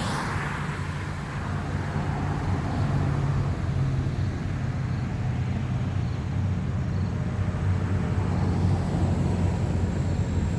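An engine idling steadily: a low, even drone that swells and eases slightly.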